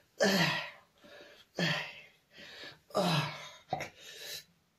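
A man's forceful exhalations, one loud grunt falling in pitch on each pull of a sandbag row, about one every second and a half, with quieter breaths in between: the strain of lifting a heavy sandbag.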